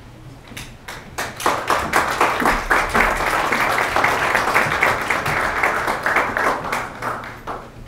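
Audience applauding: a few scattered claps swell about a second in into steady applause, which dies away near the end.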